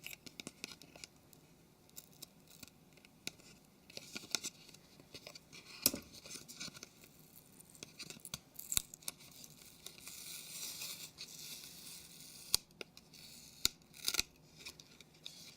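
Small sharp clicks and scratches as a phone's flex cable is pried off its plastic case, with a longer crackling peel of strong double-sided tape in the middle.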